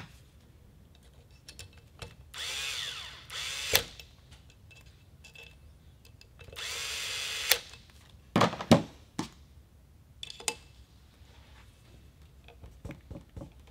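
Cordless electric screwdriver whirring in two short runs of a second or so, driving the scope rail screws into the receiver; each run ends in a sharp click as the screw seats. Several knocks of tools being handled follow, and light clicks near the end as the screws are snugged with a hand screwdriver.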